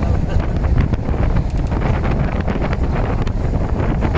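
Wind buffeting the microphone: a loud, steady low rumble with a noisy hiss above it.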